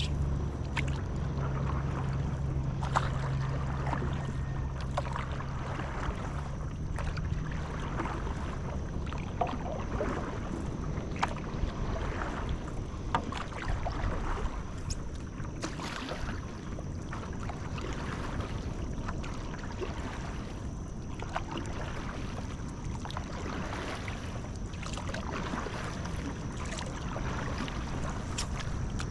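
Stand-up paddle strokes: the blade dipping and pulling through calm river water with small splashes and drips, at an irregular pace. A low wind rumble on the microphone fades out about eight seconds in.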